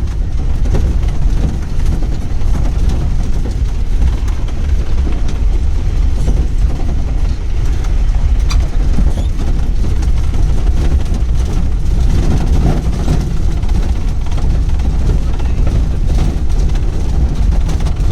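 Pickup jeep driving over a dusty, unpaved ghat track: a steady low rumble of engine and road noise with scattered small knocks and rattles.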